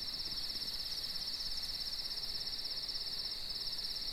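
Crickets chirping in a steady, high, rapid trill.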